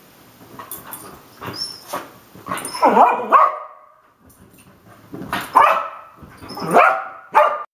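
Miniature Australian Shepherd barking in several sharp bursts, with short scuffling noises before them. The barking is excited, set off by quick hand movements that trigger her herding prey drive to chase and nip.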